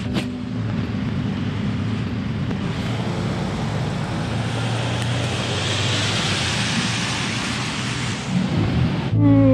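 Road traffic: a vehicle passing on the road, its tyre and engine noise swelling to a peak about six seconds in and then fading, over a steady low hum.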